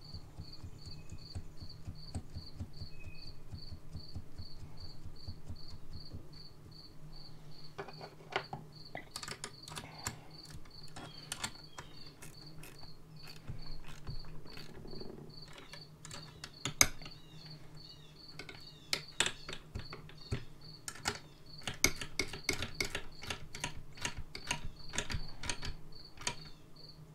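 8 mm ratcheting box wrench clicking in short runs as the carburetor mounting nuts are run down on a Stihl 031 AV chainsaw, starting about eight seconds in and growing busier toward the end. Behind it a cricket chirps steadily, about two chirps a second.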